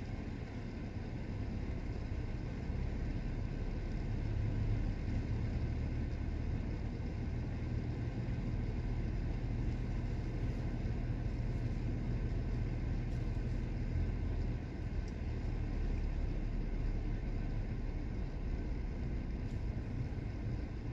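Steady low rumble inside a car's cabin, the engine idling while the car stands still at a traffic light.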